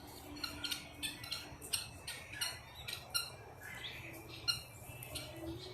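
Farm birds calling in short, repeated squawks and chirps, a dozen or more scattered across the few seconds.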